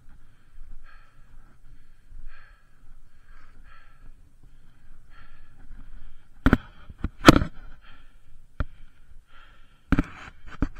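A mountain biker breathing hard, with a run of sharp knocks and clatters from the electric mountain bike on the rocky trail about six to seven seconds in, one more knock a second later, and two more near the end.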